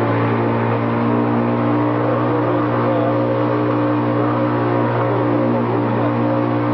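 A small boat's motor running steadily under way, a constant engine drone.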